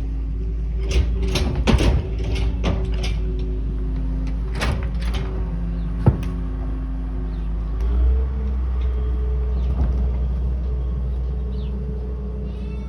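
Truck engine running steadily, its note shifting about eight seconds in, with a string of loose metal clanks and rattles over the first six seconds.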